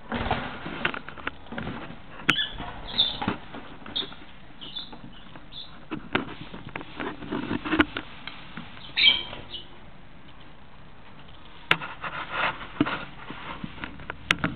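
A nesting bird shifting in its nest material beside its eggs: irregular rustling, scratching and clicking, with a few short high chirps in the first ten seconds.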